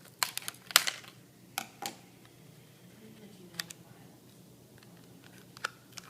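Scattered sharp clicks and crinkles of a wax-paper baseball card pack and its cards being handled: several close together in the first two seconds, then a few single clicks spaced out.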